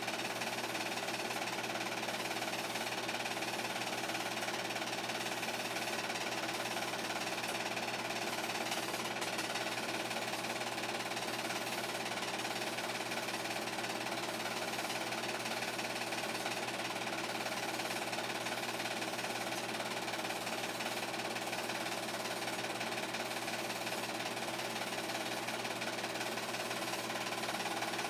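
8mm film projector running steadily: a constant mechanical whir with a steady hum.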